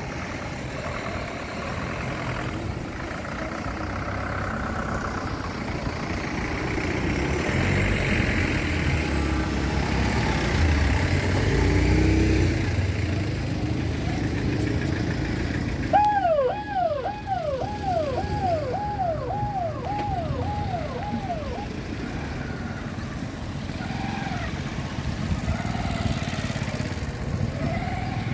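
A motorcade of cars and SUVs driving past with steady engine and tyre noise. About sixteen seconds in, a siren sounds a repeating falling wail, about nine quick downward sweeps over five seconds, the loudest thing here.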